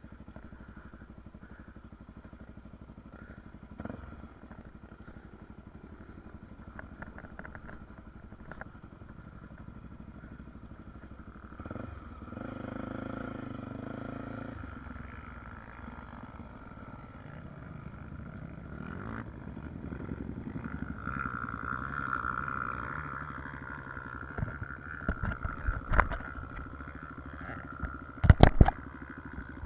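Honda XR250 Tornado single-cylinder dirt bike, bored out with a 280cc kit and fitted with a ProTork Powercore exhaust, running at low revs and picking up briefly twice. A few sharp knocks come near the end.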